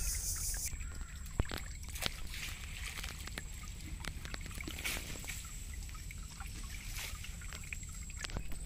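Water trickling and dripping off a wet ring net as it is hauled up out of the canal into a wooden boat, with scattered small knocks and clicks of the net against the boat.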